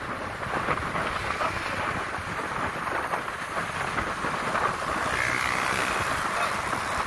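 Wind buffeting the microphone of a moving motorbike, a steady rough rush with road and engine noise underneath.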